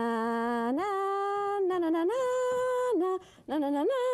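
A woman humming a tune in long held notes that leap upward and step back down, with a brief pause about three seconds in.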